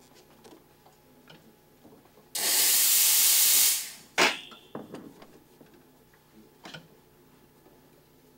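La Spaziale S1 espresso machine's steam wand purged into a towel to clear milk residue: a loud hiss of steam for about a second and a half, then shut off. A sharp knock follows just after, then a few light clicks.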